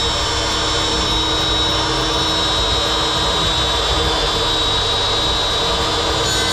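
Cordless power cutting tool running at a steady speed with a high whine, held against old boat timber before it bites in.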